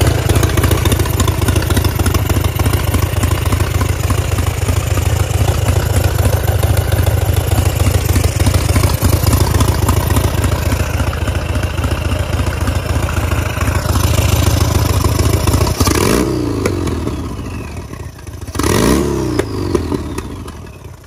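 Turbocharged, carbureted Harley-Davidson Sportster 1200 air-cooled V-twin running, exhausting through the turbo's open, unmuffled downpipe. It runs steadily for most of the time, then the throttle is blipped twice near the end, the revs rising and falling each time. A high whistle falls away after the second blip.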